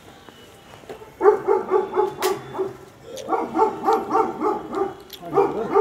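A dog barking in quick runs of short, high yaps, about six a second, two long runs and then a brief burst near the end. A single sharp click sounds in the middle of the first run.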